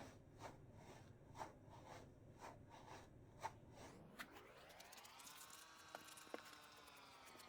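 Faint handling of a foam banana squishy toy: soft squeezing sounds about twice a second, then a long faint squeak-like tone that rises and slowly falls, with a few light clicks near the end.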